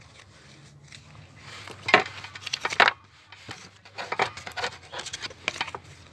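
Pokémon trading cards being handled and flicked through over a wooden table: a run of quick clicks, flicks and taps, loudest about two seconds in.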